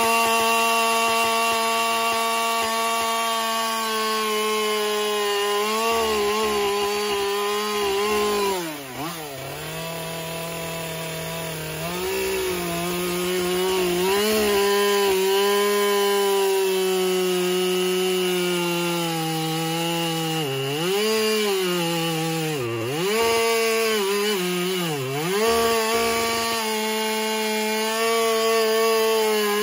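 Husqvarna two-stroke chainsaw running at high revs while cutting into a log. The engine note dips briefly and climbs back up several times.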